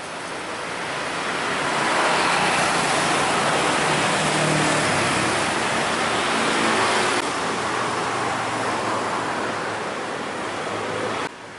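Street traffic noise: an even rush of passing vehicles with a low engine hum underneath, swelling over the first couple of seconds and cutting off abruptly near the end.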